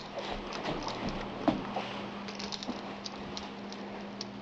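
Light, scattered clicks and taps from cooking in a kitchen, over a faint steady hum.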